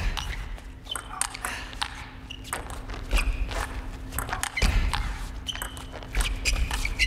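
Table tennis rally: the ball clicking sharply off the rackets and the table in quick back-and-forth exchanges, with players' feet thudding on the court floor a few times.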